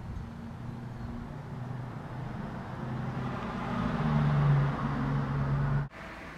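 A motor vehicle on the street running with a low engine hum, growing louder about three seconds in, then cutting off suddenly just before the end.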